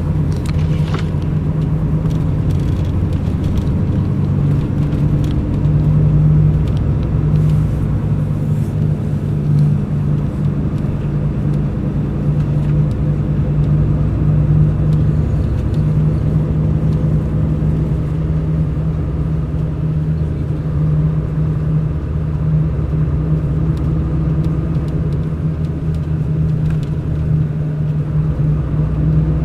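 Mercedes-Benz O500 RSD BlueTec5 coach's diesel engine running at a steady pitch while the bus drives, a constant deep hum with a rumble underneath.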